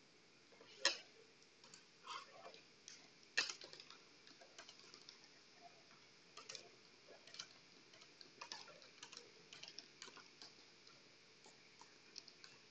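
Near silence with faint, irregular small clicks and ticks over a quiet room hiss, two of them sharper and louder, about one second and three and a half seconds in.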